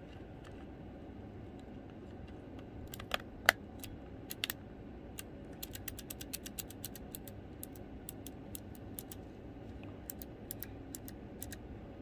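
Keychron low-profile optical blue switches being pushed into the hot-swap sockets of a Keychron K3 keyboard: sharp plastic clicks, two louder ones about three seconds in, then a quick run of small clicks through the second half.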